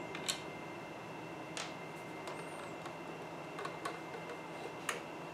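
Sharp plastic clicks and taps from an old BMW E28 VDO instrument cluster being handled and its housing pried apart, about five clicks at irregular intervals.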